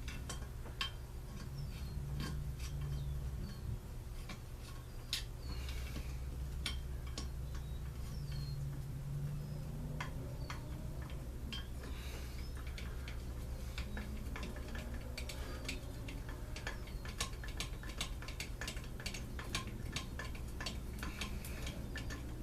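Small clicks, taps and light metallic clinks, irregular and more frequent in the second half, of small two-stroke engine parts and tools being handled during reassembly, over a steady low hum.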